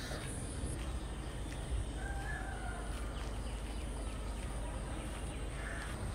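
A few short, spaced-out bird calls over a steady low background rumble.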